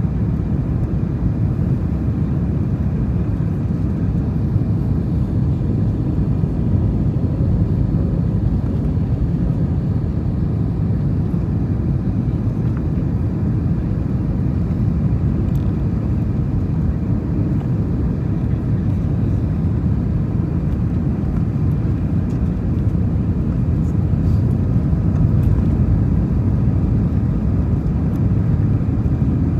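Steady cabin noise of an Airbus A321 on final approach, heard from a window seat inside the cabin: an even low rumble of engines and airflow that barely changes.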